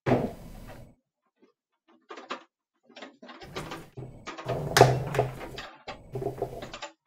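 Handling noise as parts are fitted onto a popcorn machine: clatter and knocks, the sharpest knock about five seconds in, over a low muffled rumble in the second half.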